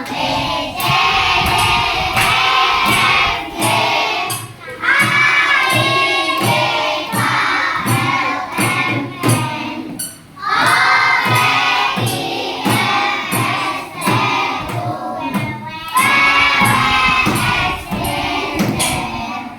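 A class of young children singing a song together in chorus, with a steady beat about twice a second.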